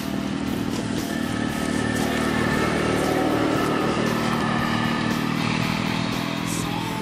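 Kubota RTV utility vehicle's engine running as it drives past, growing louder to a peak about halfway through and then fading as it pulls away.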